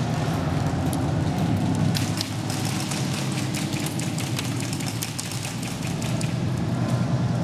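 Airsoft guns firing: a dense, irregular crackle of sharp snaps from about two seconds in, thinning out near the end, over a steady low rumble.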